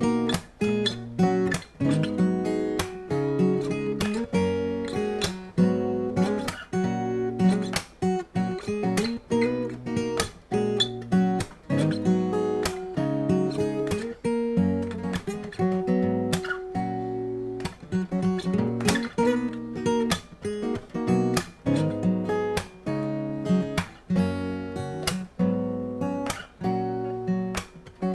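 Solo dreadnought acoustic-electric guitar (Shelter Celtic 100) playing a song: chords strummed and picked in a steady rhythm, several strokes a second.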